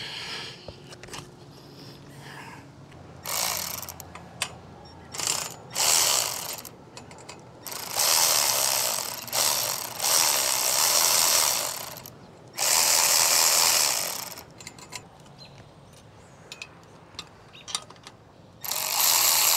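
Ratchet wrench tightening the bolts of a chimney-mount strap bracket for an antenna mast, cranked in several bursts of rapid ratcheting, each a second or two long, with a pause of a few seconds before the last one.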